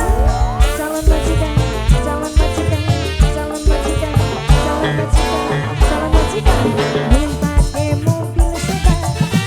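Loud live band music with many melodic instrument lines over a heavy, pulsing bass beat, with a rising glide in pitch near the start.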